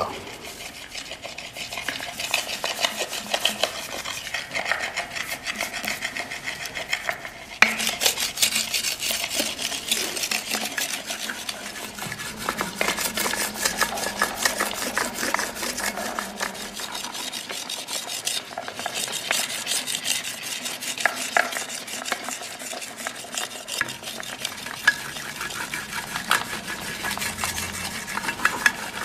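Hands rubbing and smoothing the surface of a hand-built clay pot, a dense, rapid scraping rasp of many fine strokes, getting louder and brighter about a third of the way in.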